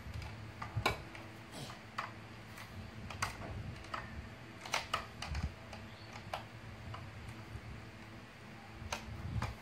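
Hard plastic parts of a snap-together toy dinosaur kit clicking and knocking as the pieces are fitted on, in irregular sharp clicks every second or so.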